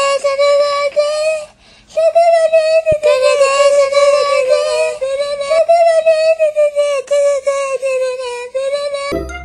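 A white cat's drawn-out yowl: one short call, a brief break, then one long unbroken call at a steady, wavering pitch.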